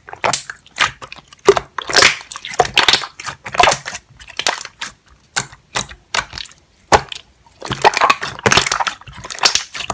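Slime being squeezed and pressed by hand, giving irregular crackling and clicking pops with no steady rhythm, densest in a few clusters.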